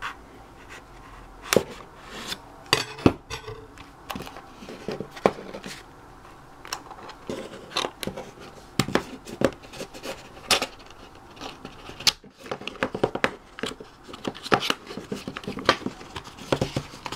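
A small retail box being carefully pried open by hand: irregular clicks, taps and scrapes of the packaging.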